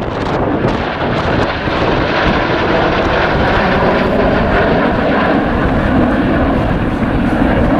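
A formation of nine BAE Systems Hawk T1 jet trainers flying past, their Rolls-Royce Turbomeca Adour turbofans making a steady jet roar.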